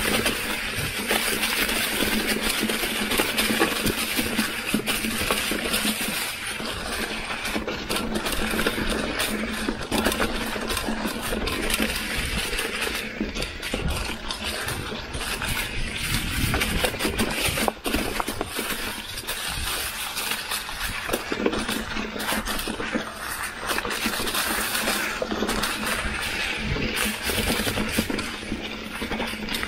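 Mountain bike rolling along a leaf-covered dirt trail: tyres crunching through dry leaves, with frequent clicks and rattles from the bike over bumps and the mechanical buzz of its Industry Nine freewheel hub.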